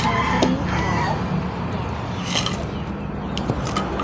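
A rooster crowing in the first second, over a steady low hum. Later come a few light clicks of a spoon against a plate.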